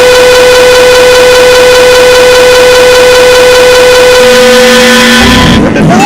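Sound-effect samples from the Thirty Dollar Website emoji sequencer, retriggered so fast that they blur into a very loud, harsh, siren-like buzzing drone. A lower tone joins about four seconds in, and near the end the drone gives way to a loud low crash and a jumble of sliding pitches.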